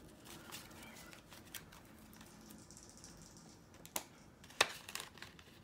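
Faint handling of paper banknotes and a paper cash envelope: soft rustling with scattered light clicks and taps, and two sharper clicks about four and four and a half seconds in.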